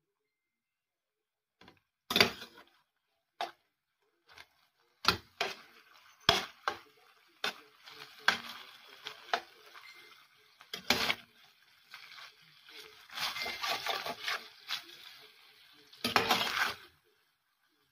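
A metal spoon clinks and scrapes against a stainless steel pan as beef strips are stirred and tossed while they fry, with irregular knocks and longer scraping passes near the end.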